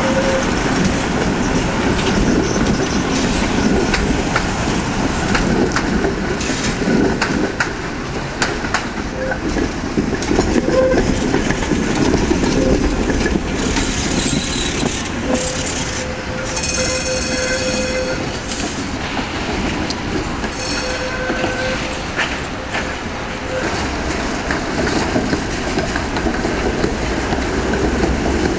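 Tatra trams rumbling past at close range, their wheels clicking over rail joints and points. A high-pitched wheel squeal rings out for about a second and a half past the middle, and more briefly a few seconds later, as the wheels take the curve.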